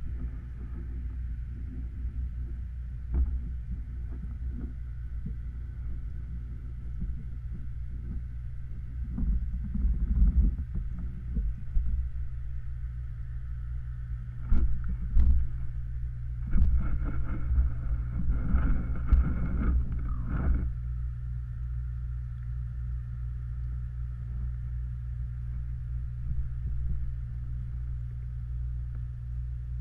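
Steady low mechanical hum of pond equipment heard through the water on an underwater camera, with scattered knocks and a louder run of knocks and rustles from about 16 to 20 seconds in.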